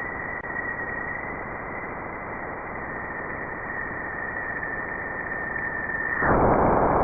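Radio emissions from Jupiter's magnetosphere converted into sound: a steady static hiss with a high whistling tone that drifts slightly lower. About six seconds in the whistle stops and the hiss grows louder.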